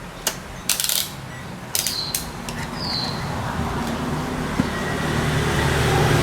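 Sharp mechanical clicks and a brief rattle, then a low hum that grows steadily louder toward the end.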